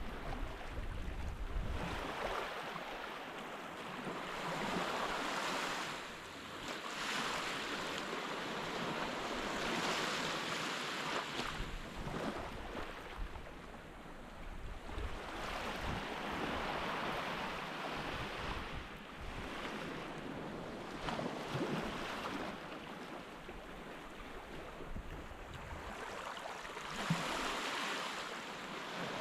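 Surf washing onto a sandy beach, swelling and falling back every few seconds, with wind buffeting the microphone.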